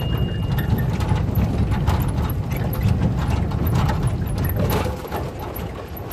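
Low rumble of a moving vehicle and wind on the microphone over a rough gravel road, with irregular rattling and clicking throughout. The rumble eases a little about five seconds in.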